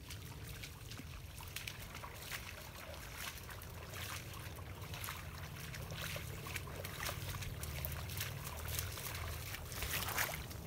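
Footsteps of hikers and a dog splashing through shallow water on a flooded trail, over a steady low rumble. The splashes grow louder near the end as a walker comes close.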